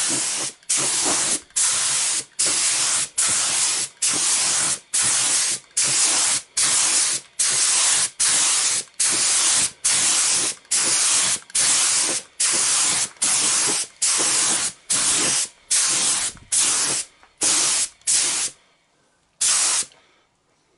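Compressed-air spray gun with a 1.2 mm nozzle hissing in rapid short bursts, a little over one a second, then a pause and one last burst near the end. It is spraying nearly pure 2K anti-mist thinner over fresh clearcoat to melt the overspray haze at the blend.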